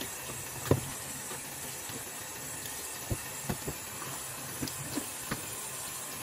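Kitchen tap running into a stainless steel sink, a steady hiss of water, while plastic yogurt cups are handled under the stream and knock against each other and the sink several times, the loudest knock about a second in.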